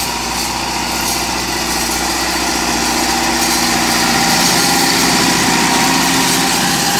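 Massey Ferguson 375's four-cylinder diesel engine running steadily under load, the tractor pulling an 11-tine cultivator through the soil, growing a little louder towards the end.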